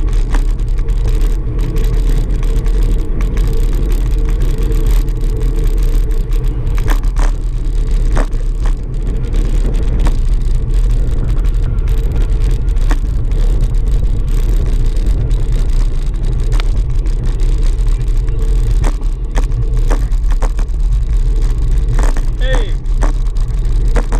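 Wind rumbling on the microphone of a camera riding on a moving bicycle, steady and heavy, with occasional small clicks and knocks from the bike on the road.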